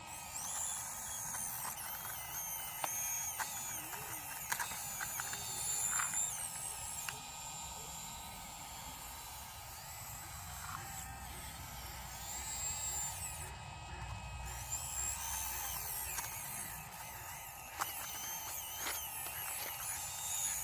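Small electric motors of a radio-controlled Bruder CAT toy excavator whining, rising and falling in pitch as they speed up and slow down, with scattered clicks and scrapes as it digs in gravel.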